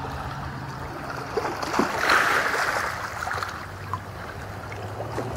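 Water sounds on open water: a steady hiss with a louder rushing surge about two seconds in that lasts about a second, and a few small splashes around it.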